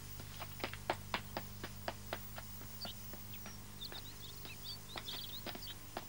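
Steady footsteps, about four a second. Small birds chirp from about three to five seconds in, over a low steady hum.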